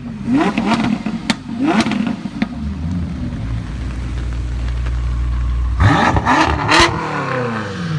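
Sports car engine revving in short rising blips, settling into a steady low rumble, then revving again, with the engine note falling away near the end.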